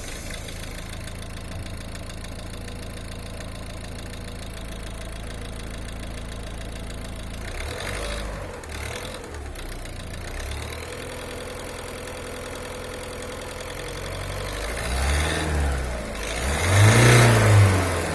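A warm 1.6 DV6C four-cylinder diesel engine idling, then revved up and let fall back a few times in the last few seconds, the last rev the loudest. The owner reports a knock or rattle from this engine once it is hot, which does not change when the clutch is pressed.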